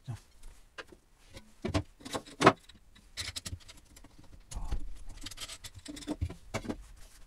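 A run of sharp metallic clinks and knocks as a stainless steel mash vessel is handled: a metal rod and a glass lid knocking against the pot's rim. The loudest clink comes about two and a half seconds in.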